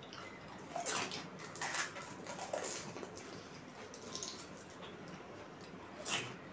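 Panipuri (golgappa) being eaten: short bursts of crunching and slurping as water-filled puris are bitten, five or so times over, the sharpest near the end.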